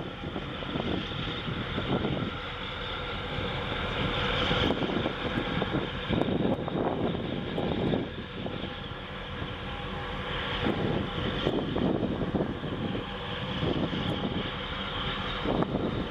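Steady low drone of a large container ship's machinery as it passes close by, with wind gusting on the microphone.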